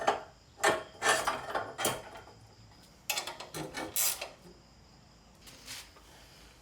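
Several clunks and scraping rubs of metal bike parts being handled and fitted together, most in the first four seconds, then quieter with one faint knock near the end.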